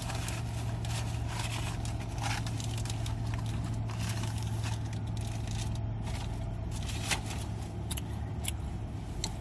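Steady low hum of a car heard from inside the cabin, with light scraping and crinkling of fast-food packaging being handled.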